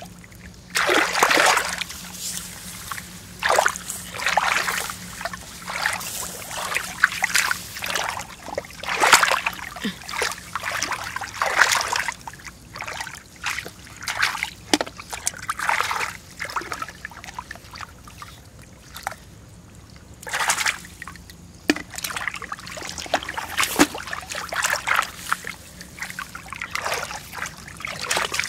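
Shallow rice-paddy water splashing and sloshing in irregular short bursts as it is stirred by hand or foot, with a quieter lull about two-thirds of the way through.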